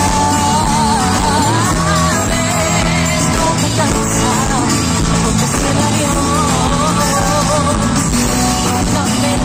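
Live pop band playing at concert volume, a wavering melody line carried over steady bass and percussion.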